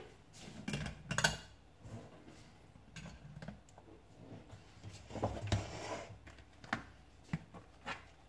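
Kitchen utensils and dishes being handled on a worktop: a string of clinks and knocks, loudest about a second in.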